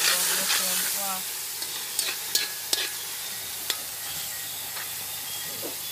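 Tinned mackerel frying and sizzling in a pan as it is stirred with a spoon, with a few sharp clicks of the spoon against the pan between about two and four seconds in.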